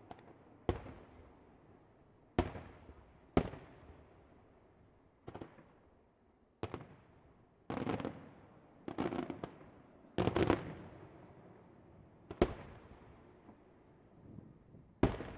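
Fireworks display: about ten loud bangs at irregular intervals, a few coming in quick clusters, each trailing off in a rolling echo.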